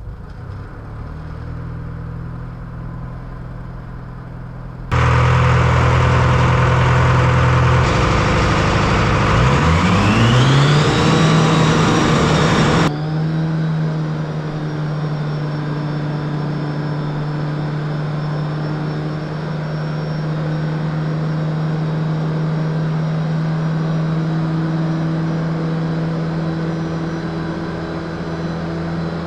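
Detroit Diesel 4-53T turbocharged two-stroke diesel, freshly fitted with a rebuilt N blower, starting up. It cranks noisily for several seconds, catches and climbs in pitch with a rising whine. The cranking noise cuts off suddenly, and the engine then settles into a steady idle with a high whine on top.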